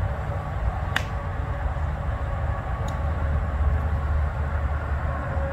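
Steady low outdoor rumble, with a single sharp click about a second in and a fainter click near three seconds.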